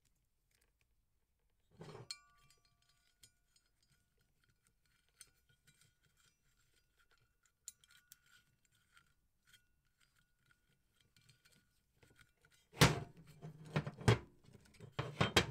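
Small clinks and knocks of a metal tail-tidy bracket and plastic tail-light parts being handled and fitted together. The sound is mostly faint scattered clicks, with one handling noise about two seconds in and a louder run of clatter and knocks in the last few seconds.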